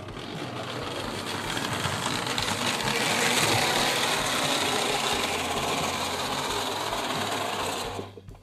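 Marx toy electric steam locomotive running around the track, its small motor and gears whirring steadily. The sound grows louder as it comes nearest, about halfway through, and fades near the end.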